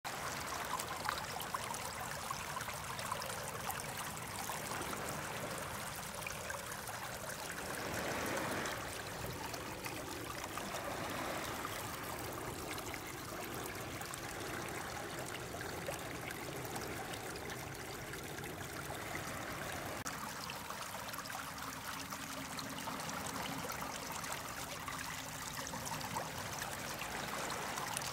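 Shallow creek water running and trickling over pebbles, a steady babble that swells briefly about eight seconds in.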